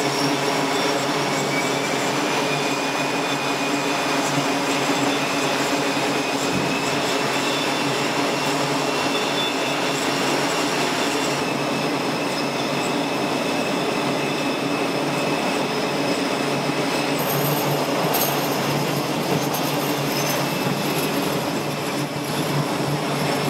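F/A-18 jet engines running on a carrier flight deck: a steady, loud rush with a high whine layered over lower engine tones. The whine rises slightly about a second in.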